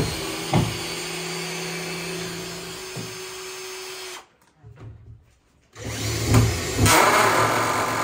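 Cordless electric screwdriver running in two bursts, backing screws out of a wooden stall board. The first run holds a steady pitch for about four seconds; after a short pause a second, louder run starts about six seconds in.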